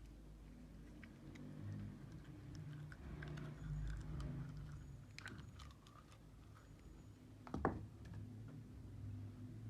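Slime being handled and mixed: scattered faint sticky clicks and taps, with one louder sharp click about three-quarters of the way through.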